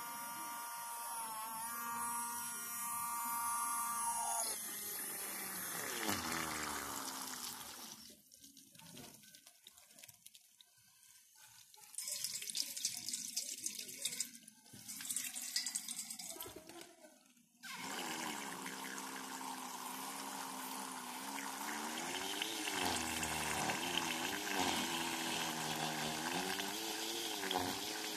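Small DC motor of a homemade mini water pump running with a steady whine, then winding down with a falling pitch. After a quieter stretch there is splashing water. From about two-thirds of the way through, the motor runs again with a wavering whine while the pump sprays a jet of water into a steel bowl.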